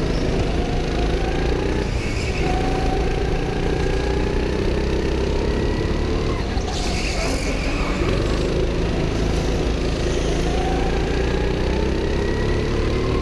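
Go-kart engine heard from the driver's seat. Its pitch rises as the kart accelerates and falls away as it slows, several times over.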